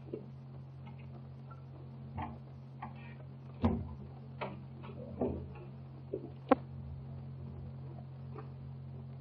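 A steady low hum with about eight scattered, irregular clicks and knocks, the loudest about three and a half seconds in and another sharp one about six and a half seconds in.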